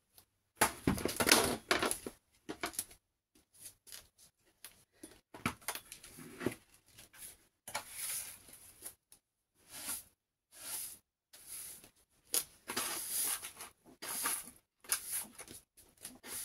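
Dry hay rustling in short, irregular bursts with quiet gaps between them, the loudest about a second in.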